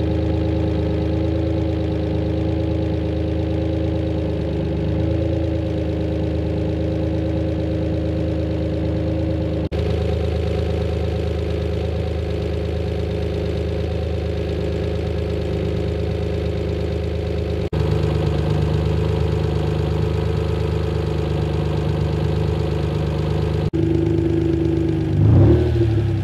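Freshly swapped BMW S54 3.2-litre straight-six running at a steady idle on one of its first starts. Near the end it is revved briefly, the throttle worked by hand through the loose electronic accelerator pedal.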